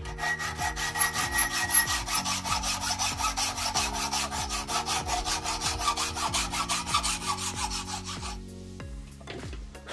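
Hand hacksaw cutting through a galvanised high-tensile steel bolt in rapid, even strokes, stopping about eight seconds in. Background music plays underneath.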